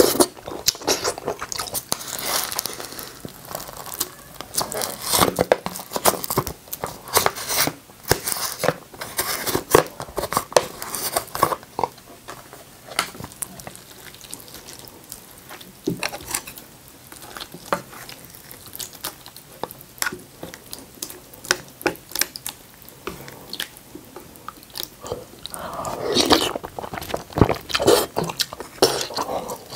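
Close-miked mouth sounds of a person eating beef seaweed-soup ramen: chewing with many small wet clicks, and a louder slurp of noodles or broth near the end.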